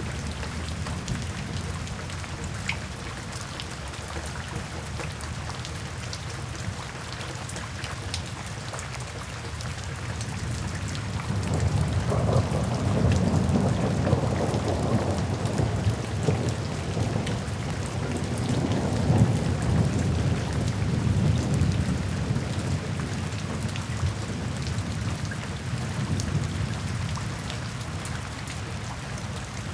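Steady rain falling, with a long low roll of thunder that swells about a third of the way in and slowly fades away near the end.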